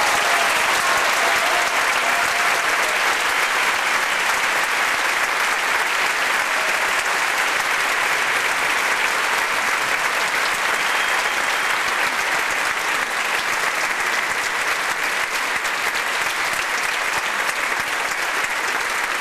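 Audience applauding steadily at the close of an orchestral piece.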